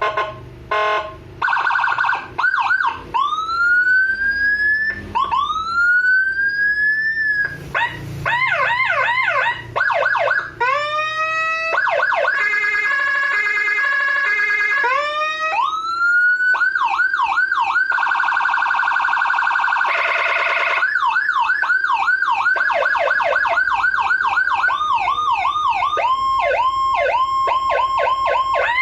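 Electronic emergency-vehicle siren run through its tones in turn. It opens with short horn blips, then gives two slow rising wails and rapid yelp sweeps. A quick two-tone alternation follows, then a harsh buzzing horn blast, then yelp again, ending in a faster warble.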